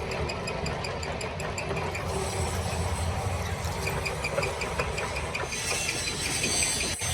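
A machine running steadily with a low hum and a fast, even ticking of about five ticks a second, as of a part turning in a machine tool.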